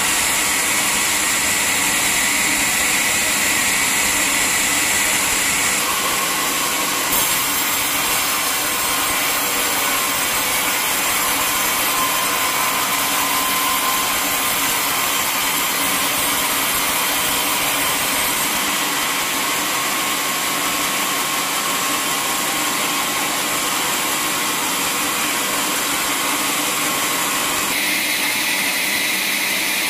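Band sawmill running steadily, its band blade cutting along a teak log, with a high machine whine over a hiss; the sound shifts abruptly a few times.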